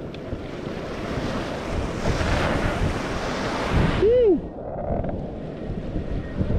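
Wind rushing over the microphone together with the rush of water and swell while wing foiling, swelling louder through the middle. A little past halfway a brief whistling tone rises and falls.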